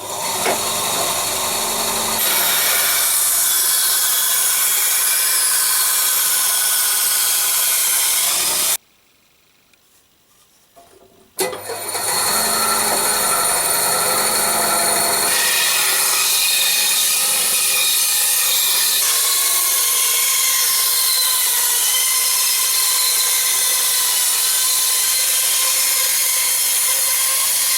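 Power saw cutting wooden floorboard offcuts and bars, running steadily, stopping for a couple of seconds about nine seconds in, then cutting again.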